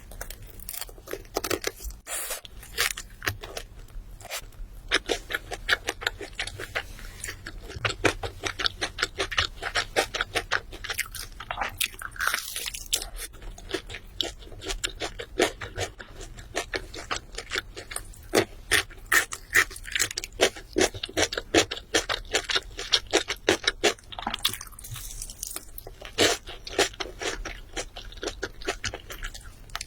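Close-miked chewing with crisp crunching of food, many short crunches in quick succession.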